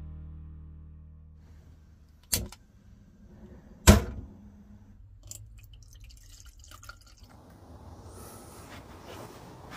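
Coffee being made with a stovetop moka pot on a campervan's gas hob: two sharp knocks, the second the louder, as the pot is handled on the burner, then a soft watery hiss.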